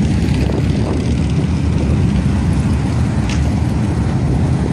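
Steady low rumble of road and engine noise from a car on the move, heard from inside the vehicle, with a brief faint higher squeak a little over three seconds in.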